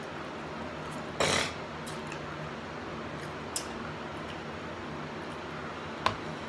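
A short, loud mouth noise from someone eating saucy chicken wings, about a second in, over a steady room hum, with a couple of faint clicks later.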